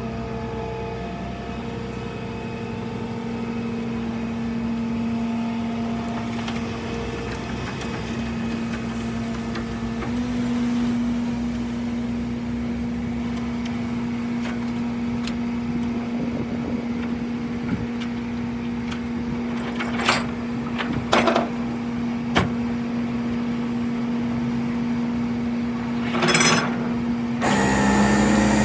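A vehicle running with a steady droning hum, a few sharp clicks about twenty seconds in and a brief loud burst of noise near the end, after which the sound turns louder.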